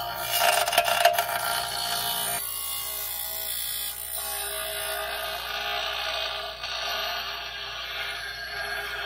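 Bench grinder running with a piece of steel pressed against the spinning wheel, a steady whine with a grinding hiss, loudest and roughest in the first couple of seconds.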